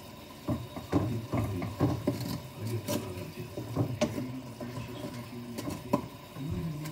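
Irregular light clicks, taps and knocks of hands working with utensils, packaging and food at a kitchen counter, several a second with short pauses.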